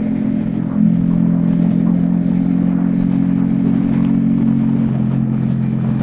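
Yamaha XSR155's single-cylinder engine through a DIY exhaust, running steadily under way. The note eases off briefly and picks back up just before a second in.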